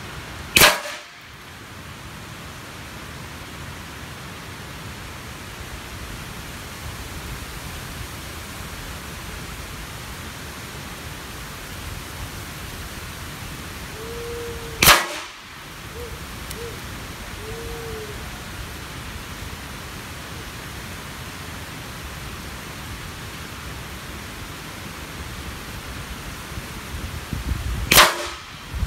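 Three single shots from an M25 9 mm air rifle, each a short sharp crack, roughly fourteen seconds apart. Between them is a steady hiss of wind and leaves.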